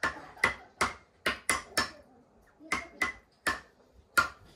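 Fish-shaped toy xylophone with wooden bars, played note by note with a mallet. A run of six quick notes, a short pause about two seconds in, then four more, each note ringing only briefly.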